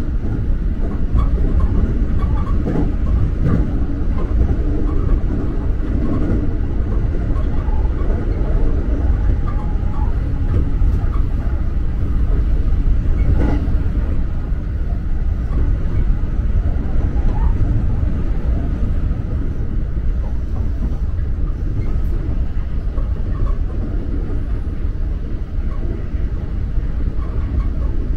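JR Kobe Line rapid electric train running along the track, a steady low rumble of wheels on rail.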